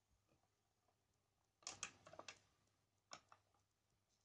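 Faint mechanical clicks and clatter from a vintage automatic record changer cycling as its tonearm swings out over the record: a quick cluster of clicks about two seconds in and a single click about a second later, over a faint steady low hum.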